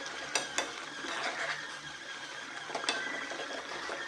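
Ladle stirring a simmering fish curry in a non-stick pan over a steady hiss, clinking sharply against the pan a few times: twice close together about half a second in and once near three seconds.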